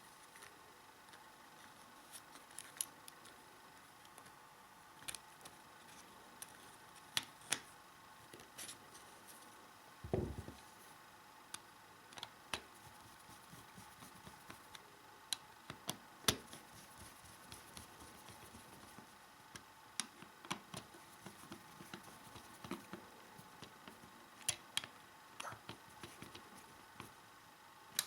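Scattered light clicks and taps of hands fitting a plastic wall socket back into its box and securing it, with one duller knock about ten seconds in.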